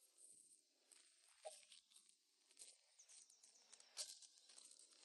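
Near silence: faint open-air ambience with a few soft clicks, a short run of faint high chirps, and a sharper tick about four seconds in.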